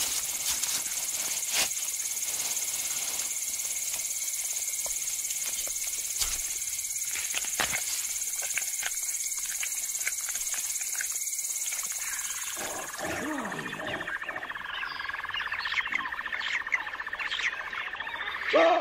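Night insect chorus, a steady shrill ringing, with scattered sharp clicks. About twelve seconds in the ringing stops and a lower wavering drone takes over, with repeated low animal calls and a short loud call near the end.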